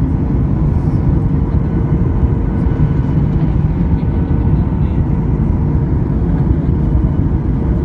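Steady cabin noise inside a Boeing 737 MAX on approach: deep rumble from its CFM LEAP-1B engines and the airflow over the fuselage, with a faint steady hum riding on top.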